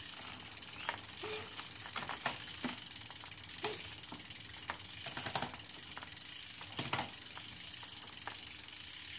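Shimano Ultegra Di2 road-bike drivetrain turned by hand in a work stand: the chain runs over the chainrings and cassette with a steady whir, broken by irregular sharp clicks as the electronic derailleurs shift the chain through the gears.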